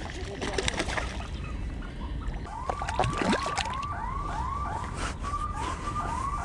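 A small sea bass splashing at the water's surface as it is brought to the net. From about halfway in, a distant siren yelps in quick rising whoops, about three a second.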